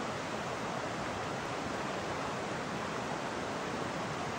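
Fast-flowing creek water rushing steadily, an even unbroken hiss of moving water.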